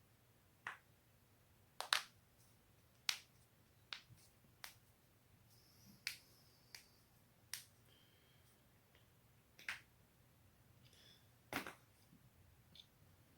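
Human neck and back joints cracking: about a dozen sharp, single pops spaced irregularly a second or two apart, the loudest about two seconds in.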